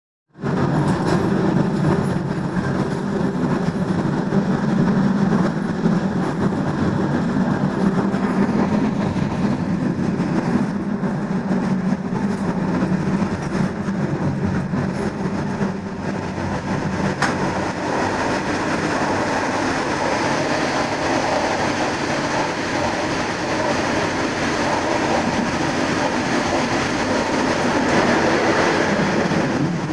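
A train running along the track, heard from inside the driver's cab: a steady rumble of wheels on rail, with one sharp click a little past halfway.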